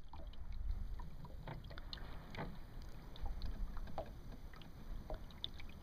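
Small water splashes and lapping against a small sailboat's hull, irregular little plops and trickles over a low rumble of wind on the microphone.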